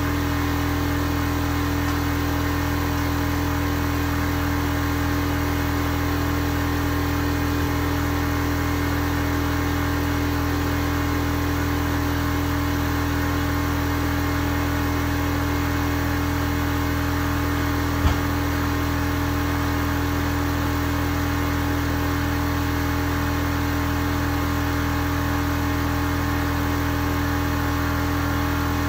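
A machine running steadily at an even, unchanging pitch, with a single sharp click about eighteen seconds in.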